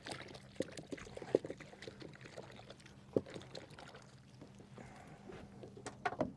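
Light clicks and knocks of bait and terminal tackle being handled at a bait tub on a small fishing boat, with water sounds and a low steady hum underneath. A sharper knock comes about three seconds in, and a quick cluster of clicks near the end.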